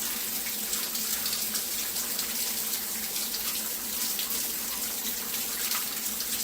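Water running steadily from a tap, an even rushing splash.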